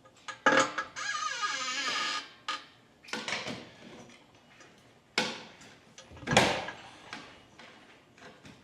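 An engine being hoisted out of its bay on an engine crane. A metal creak with a wavering pitch starts with a knock about half a second in and runs for about a second and a half, followed by several separate clunks as the engine shifts against its mounts.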